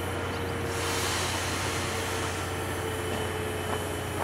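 C58 363 steam locomotive standing with steam hissing: a louder rush of hiss starts about a second in and eases off, over a steady low hum.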